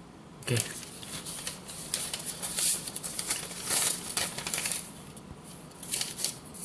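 Close handling noise: a dense run of quick clicks and rustles from about half a second in to about five seconds, then a few more near the end.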